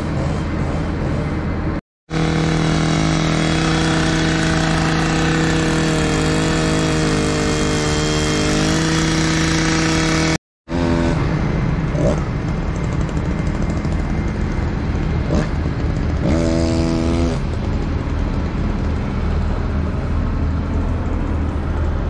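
A drill with a long auger bit boring into a live oak trunk for a through-bolt. Its motor runs steadily with the pitch sagging under load, and there is a second short run later on. Under it, the bucket truck's engine hums steadily, and the sound cuts out abruptly twice.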